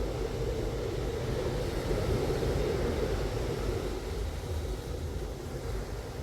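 Strong wind buffeting the microphone while wingfoiling: a steady low rumbling rush with a hissy band above it, swelling a little about two seconds in.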